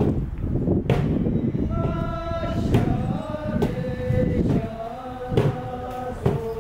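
A group of men singing a traditional Himalayan folk song together in a chant-like unison, with a large hand-held drum struck about once a second.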